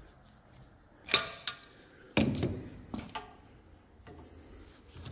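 Metal clinks and clanks of an adjustable wrench working a steel hydraulic hose coupling held in a bench vise: two sharp clicks about a second in, a louder clank with a short rattle just after two seconds, a couple more clicks, and another clank at the end.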